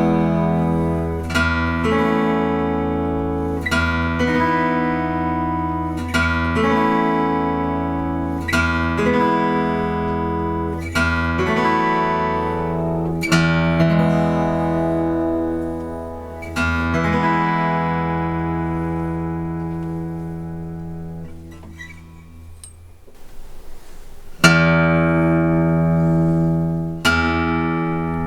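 Collins dreadnought acoustic guitar strummed in full chords, struck about every two seconds and left to ring. Near the end one chord dies away almost to silence before two more chords are struck.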